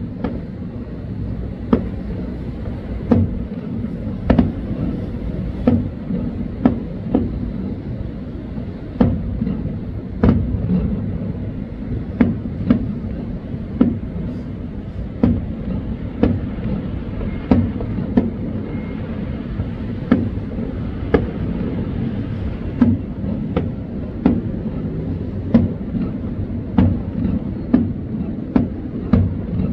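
Aerial fireworks going off in a steady volley, a sharp bang roughly every second or so, over a continuous low rumble.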